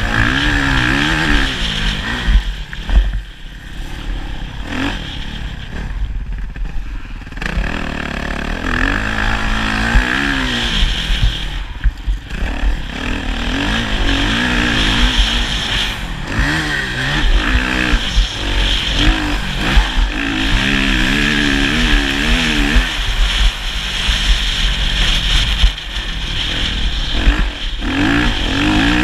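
Motocross bike engine revving up and dropping back again and again while being ridden hard, over a steady low rumble. It is quieter for a few seconds near the start.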